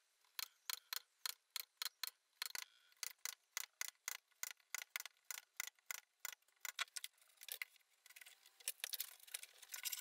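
Hand-pushed bench chisel paring out a housing in beech: short, crisp cutting clicks at about three a second as the edge chops into the grain and lifts out small chips. The clicks come closer together near the end.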